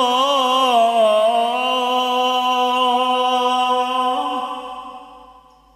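A man's voice reciting the Qur'an in melodic tilawah style, drawing out one long ornamented note. The note wavers at first, then holds steady, lifts slightly about four seconds in, and fades away near the end.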